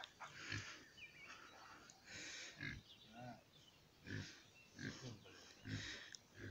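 Domestic boar (pig) grunting faintly, in a loose series of short grunts about one a second.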